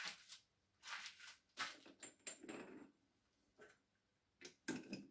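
Faint, scattered knocks and clicks of metal parts being handled at a stopped metal lathe's three-jaw chuck, with a short high metallic ring about two seconds in.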